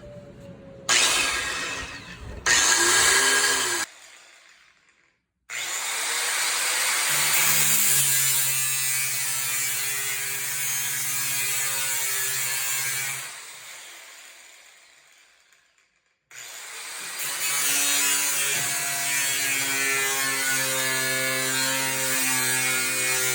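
Bosch GWS 060 angle grinder's electric motor, blipped twice briefly, then run steadily at speed, switched off and coasting down over a few seconds, then started again and held running.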